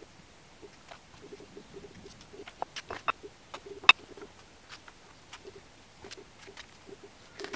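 Scattered light clicks and taps of a steel vernier caliper and a metal part being handled on a milling machine table, with one sharper click about four seconds in.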